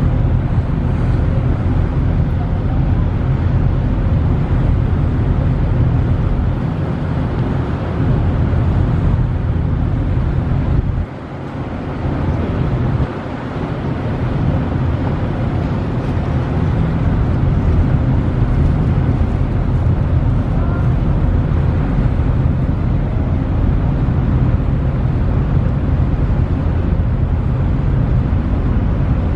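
Steady low rumble aboard a moving ferry: the ship's engine drone mixed with wind on the microphone. It drops quieter for about two seconds around a third of the way in.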